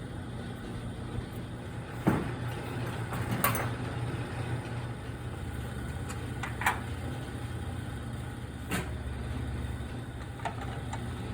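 Steady low engine-like hum, with a few short, sharp metal knocks as galvanized steel windmill blades are handled and set on a scale for weighing.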